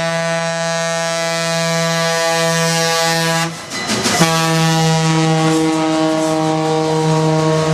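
Diesel locomotive air horns sounding long, steady blasts of several notes at once, breaking off briefly about three and a half seconds in and then sounding again.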